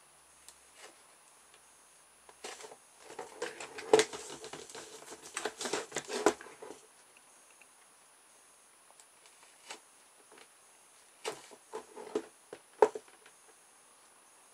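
Clicks, knocks and crackling from a cheap plastic toolbox being handled while a hot soldering iron melts holes through it. The sounds come in two bursts, a longer one from about two to seven seconds in and a shorter one around eleven to thirteen seconds.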